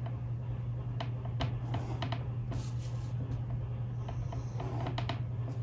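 Ballpoint pen ruling lines on graph paper along a plastic ruler, with scattered light clicks and scrapes as the ruler and protractor are shifted. A steady low hum lies underneath.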